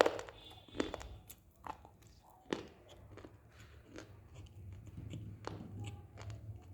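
Lumps of dry multani mitti (Fuller's earth clay) being bitten and chewed close to the microphone: a string of sharp crunches, loudest right at the start and again about two and a half seconds in, then softer chewing over a low steady hum.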